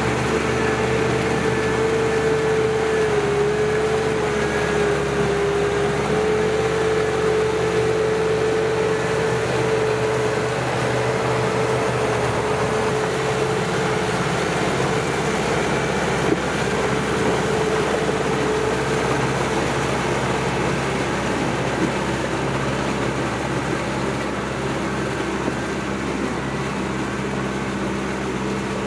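Kubota M6040SU tractor's diesel engine running steadily under load while pushing mud through a flooded field, with a steady whine over the engine note.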